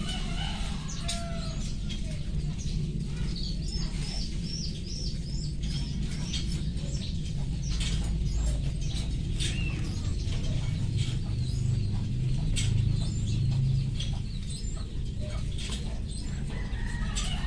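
Soil being scraped and picked away from a potted plant's root ball with a small hand tool, making scattered short scraping clicks over a steady low rumble. A bird chirps a quick run of rising notes about four seconds in.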